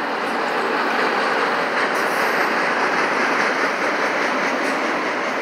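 Autorack freight cars of a Norfolk Southern train rolling past: the steady noise of steel wheels running on the rails, with a clickety-clack as the wheels cross the rail joints.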